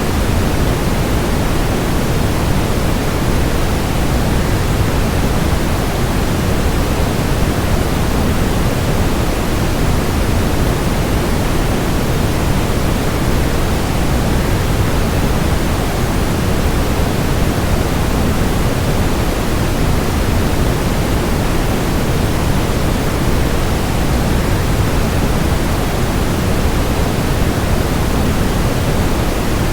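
Waterfall rushing in a steady, unbroken hiss, heavier in the low end, with no changes or separate sounds.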